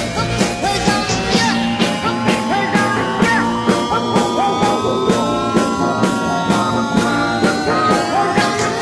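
Background rock music with a steady beat and long, slowly gliding notes.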